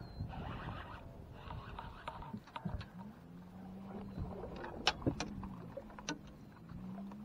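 A spinning reel being cranked in short bursts for about two seconds. Then a low electric motor hum, typical of a boat's trolling motor, sets in and rises and falls in pitch, with a few sharp clicks.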